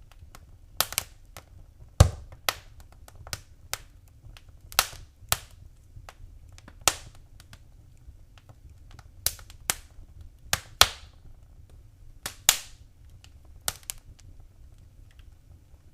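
Wood fire crackling: irregular sharp snaps and pops, some loud, over a low steady hiss.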